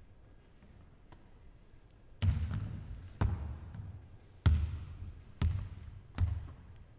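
A full-length pancake dive on a hardwood sports-hall floor: a run of five sharp thuds, starting about two seconds in, from the body landing and the volleyball striking the hand and bouncing on the floor. Each thud echoes through the hall.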